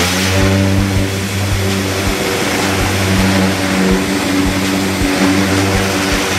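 Greenworks 1700 psi electric pressure washer running with its cyclone spray head: a steady motor hum under the loud hiss of the water jet striking the trailer's side panel.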